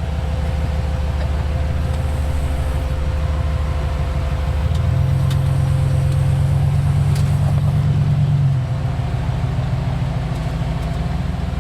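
Off-road vehicle's engine running at low speed as it crawls over rock, with a burst of throttle about halfway through that holds for a few seconds and then eases off.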